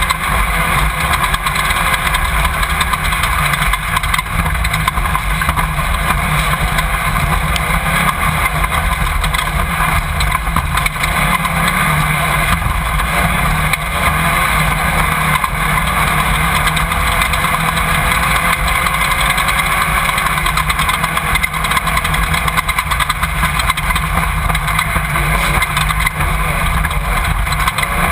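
Off-road race car's engine running loud and steady, heard through a camera mounted on the car, with no letting up.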